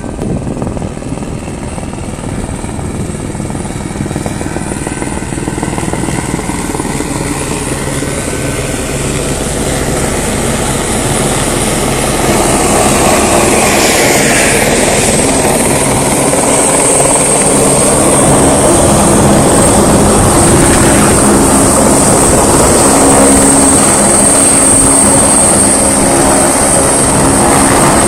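Firefighting helicopter with a slung water bucket flying in, its rotor beat growing louder over the first dozen seconds and passing close overhead about halfway through. It then stays loud and steady, with a high whine from the turbine.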